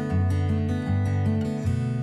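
Background music of strummed acoustic guitar, with chords changing about every half second.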